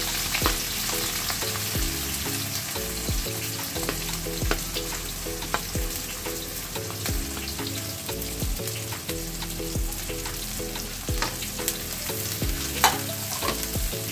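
Sliced onions sizzling as they fry in hot oil in a non-stick wok, stirred with a wooden spatula that knocks against the pan now and then. Background music plays underneath.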